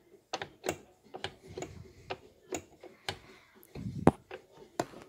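Irregular light metallic clicks and ticks, about two or three a second, as the belt-tensioning bracket on a Husqvarna LC 48V mower deck is moved by hand, with a dull thump about four seconds in.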